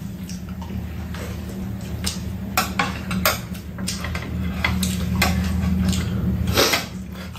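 Spoons and chopsticks clinking and scraping against bowls and a stew pan during a meal, in scattered sharp clicks, over a steady low hum.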